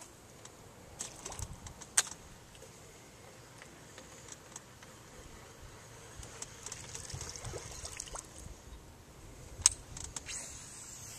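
Faint water lapping and light clicks and knocks in a small aluminium boat, with two sharper clicks, about two seconds in and near the end.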